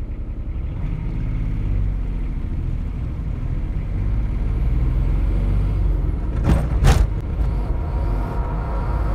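Saturn coupe's 719cc three-cylinder Kubota turbo diesel accelerating, heard from inside the cabin: a low, pulsing engine drone that builds over the first couple of seconds. Two sharp clicks come close together about two thirds of the way through.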